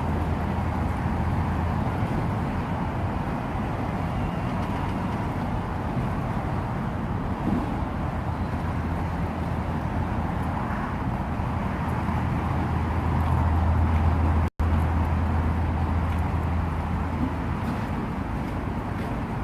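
Steady low outdoor rumble, like traffic or wind on the microphone. It drops out completely for an instant about fourteen and a half seconds in.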